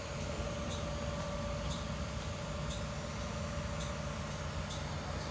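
Engine of a Bluebird Vision school bus idling while stopped in traffic: a steady low rumble with a constant hum. A faint regular tick comes about once a second.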